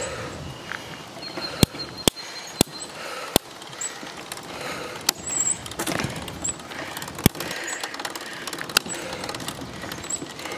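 Genesis 26-inch bicycle being ridden: a steady rolling noise broken by sharp, irregular clicks and rattles, about eight of them.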